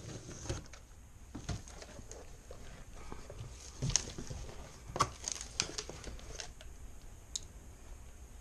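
Cardboard box and packaging being handled and opened: scattered irregular taps, knocks and light rustles, the loudest a few seconds in.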